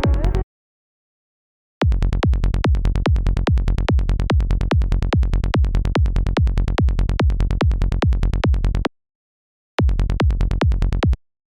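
Psytrance kick drum and synth bass looping a steady, even pulse of deep hits, each with a quick downward pitch drop at the attack, about four to five a second. It starts about two seconds in, stops near nine seconds, and plays again briefly near the end. A fuller mix of the track cuts off about half a second in.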